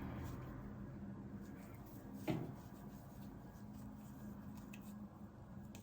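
Faint handling noise as a wig is moved about and turned over by hand, with one soft knock a little over two seconds in, over a low steady hum.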